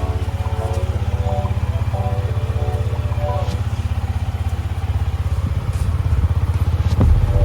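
Motorcycle engine idling steadily, with a fast, even pulse. A few sharp clicks near the end.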